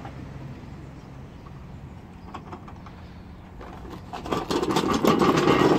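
A low, quiet steady hum. From about four seconds in comes a loud stretch of rustling and clattering, the noise of the phone camera being handled and moved.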